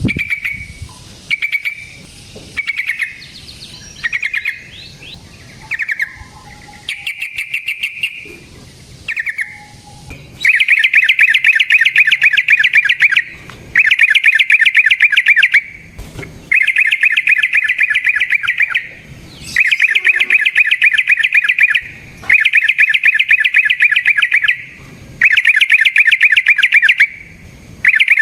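Yellow-vented bulbul (trucukan) singing: short separate phrases at first, then, about ten seconds in, a run of long rapid trills, each about three seconds long, with short pauses between them.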